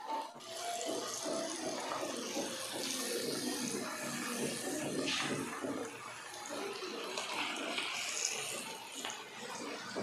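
Hot oil sizzling steadily, with many small pops, around lumpia-wrapped sweet potato and cheese sticks deep-frying in a pan until golden brown.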